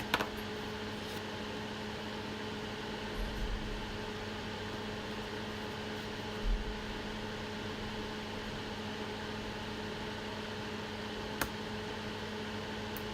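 Steady electrical hum and fan noise from microsoldering bench equipment, with a few faint low bumps and a single sharp click near the end.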